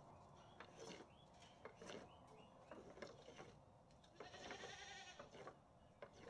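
A goat bleats once, a single wavering call of a little over a second about four seconds in. Around it, faint clicks and scrapes of a wooden stick being pushed across deck boards to sweep off goat droppings.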